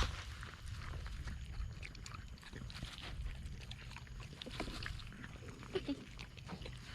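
Faint animal sounds: soft clicks and rustling, with a short pitched call near the end.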